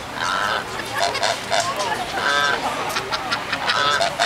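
Geese honking repeatedly, short nasal calls coming about once a second.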